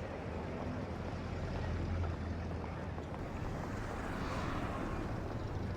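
Steady low rumbling background noise with no distinct events: a dubbed-in outdoor street ambience.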